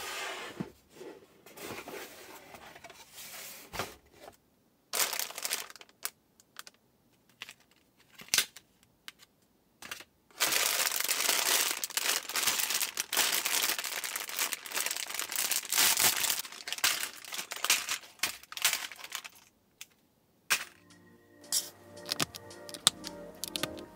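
A cardboard box being opened, then clear plastic bags of building bricks crinkling loudly as they are handled for about nine seconds. Near the end, music starts, with small clicks of plastic bricks being pressed together.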